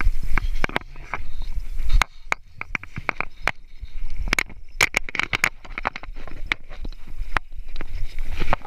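Irregular clicks, knocks and rustling of handling noise, with a low rumble underneath: a body-worn camera jostled as the angler works a spinning rod and reel and moves on a dry grassy bank.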